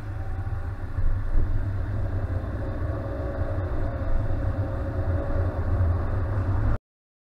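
Car driving along, heard from inside: a steady low rumble of engine and road noise that cuts off abruptly near the end.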